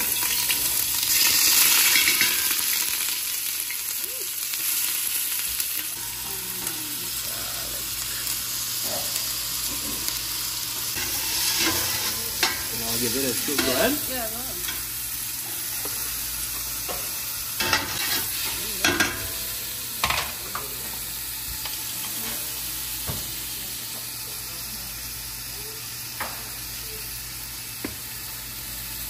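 Chopped onion and seasoning sizzling in a stainless steel stockpot as they are stirred with a metal spoon, which now and then scrapes and knocks against the pot. The sizzle starts suddenly as the onion goes in and is loudest in the first couple of seconds, then settles to a steady hiss.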